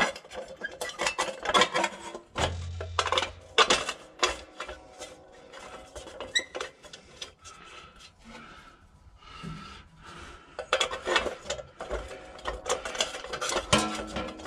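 Irregular metal clicks, knocks and scraping as the sheet-metal squirrel-cage blower wheel of an Onan diesel generator is worked back onto its hub by hand.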